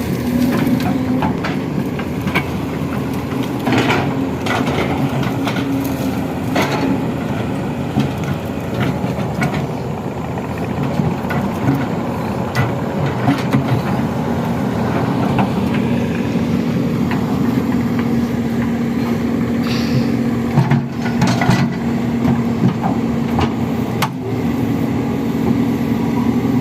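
Excavator diesel engines running hard under load, with scattered knocks and clanks as a stuck excavator is dragged out by force.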